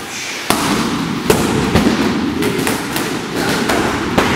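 Punches and kicks landing on Thai pads in Muay Thai pad training: a quick series of sharp smacks, about eight of them, roughly two a second, starting about half a second in.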